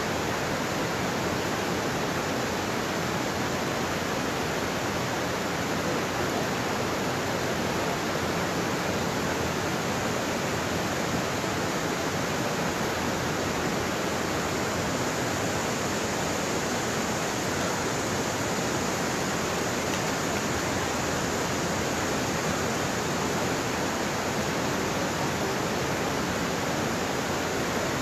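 Steady rush of a river pouring over a low, wide waterfall and down shallow rapids between rocks.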